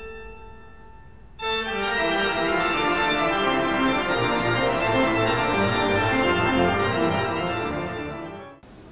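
Background organ music: a held chord fades out, then about a second and a half in a fuller passage of moving notes enters and carries on until it breaks off near the end.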